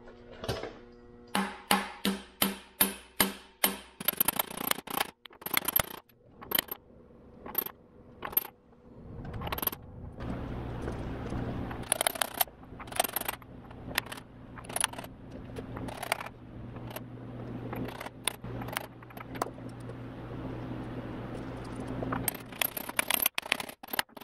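Sharp metallic taps of a 33 mm socket being hit to drive camshaft oil seals into a Subaru EJ25 cylinder head: a quick even run of about two taps a second, then scattered taps with pauses. A steady low hum runs under the taps in the middle part.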